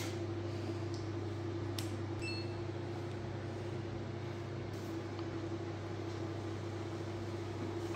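Steady low machine hum of room equipment, with a short electronic beep about two seconds in from a handheld microchip scanner as it reads the cat's implanted chip.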